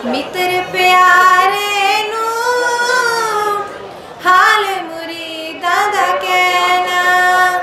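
A young woman singing a Sikh devotional hymn (shabad) solo, without instruments, holding long notes that bend slowly in pitch, with short breaths between phrases.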